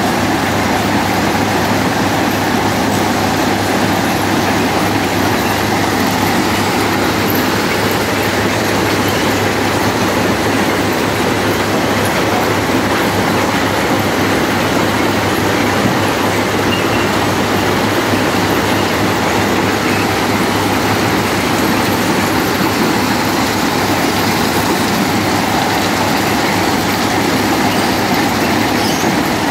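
Railway ballast-cleaning machine running steadily, its engine and conveyors working as dug-out soil and ballast stones pour off the conveyor.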